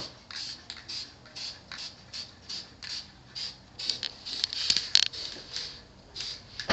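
Aerosol spray paint can in use: a steady run of short, hissing sounds, about three a second.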